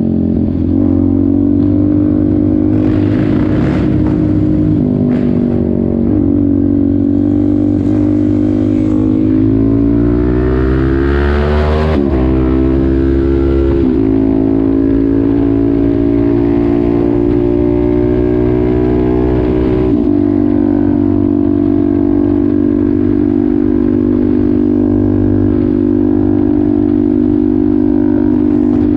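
Suzuki DR-Z400SM's single-cylinder four-stroke engine and exhaust running under way, heard from on board. The revs climb around ten seconds in and drop sharply at an upshift about two seconds later, then hold at a steady cruising note.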